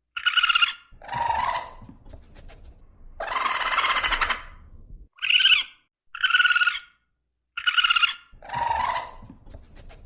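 Raccoon vocalizing: a run of short, high pitched calls with a couple of lower ones between them, and one longer, harsh call around the middle.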